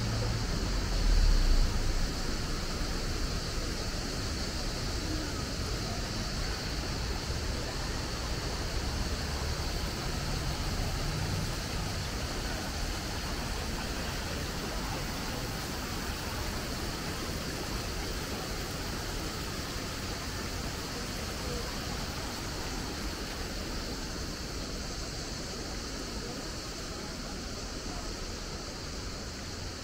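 Steady rush of river water over a shallow weir and spilling from a large water wheel, easing slightly near the end. A low bump about a second in.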